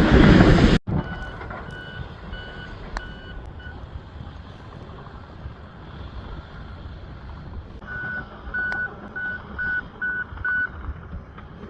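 A loud noise cuts off abruptly under a second in. Then a vehicle's reversing beeper sounds in runs of short high beeps, about two a second, over a steady low rumble. It pauses for several seconds and resumes a little faster near the end.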